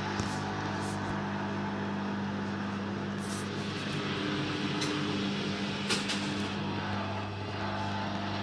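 Hoover Dynamic washing machine on a spin with a badly unbalanced load: a steady motor hum with a few short knocks scattered through it.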